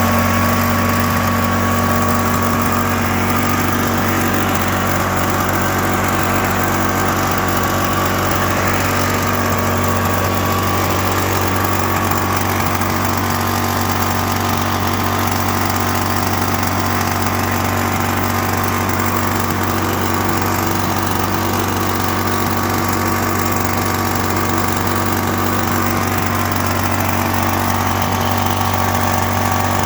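Onan Microlite 2800 generator engine running steadily at constant speed, kind of loud because it is running without its muffler connected, after a new OEM carburetor got it to start and stay running.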